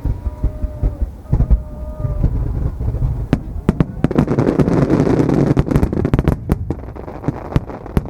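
Starmine fireworks barrage: a rapid run of sharp shell bursts, building about three seconds in into a dense, continuous crackling with many reports on top.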